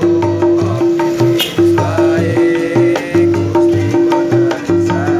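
Live acoustic busking music: small ukuleles strummed in a steady rhythm under a man's singing voice. A strong repeated bass note and hand-drum beats keep the pulse.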